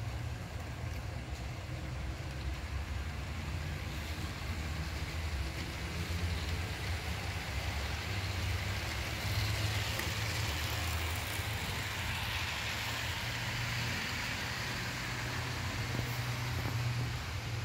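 HO scale model freight train rolling along the track: a steady rolling rumble of metal wheels on rail over a low hum, a little brighter about halfway through.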